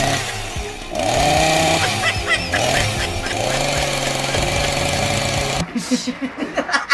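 Gasoline chainsaw engine revving up and down over and over, cutting off abruptly about five and a half seconds in. Fast bursts of laughter follow near the end.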